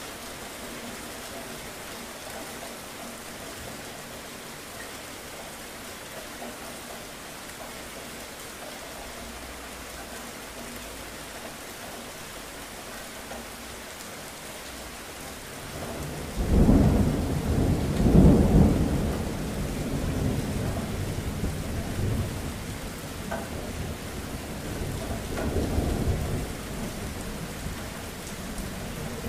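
Steady rain falling, then a little past halfway a sudden loud thunderclap that rolls on as a deep rumble for several seconds, swelling again near the end.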